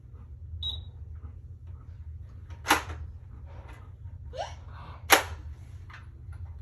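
Two sharp clacks of hard toy pieces being knocked or set down, about two and a half seconds apart, with a few fainter ticks of handling and a steady low hum underneath.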